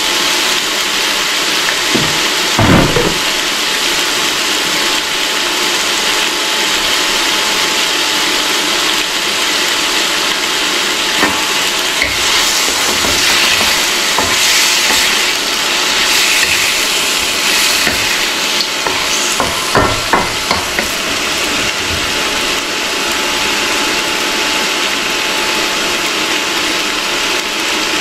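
Curry-seasoned goat meat and onions sizzling steadily in a hot wok. A wooden spatula scrapes and knocks against the pan as the meat is stirred, most clearly about two to three seconds in and again around twenty seconds in.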